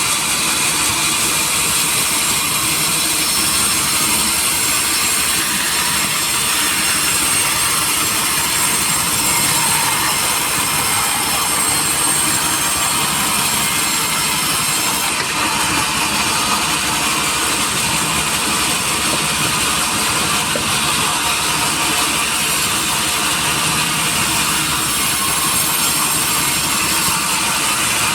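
Sawmill machinery running steadily: a loud, even hiss-like noise strongest in the upper range, changing tone slightly about fifteen seconds in.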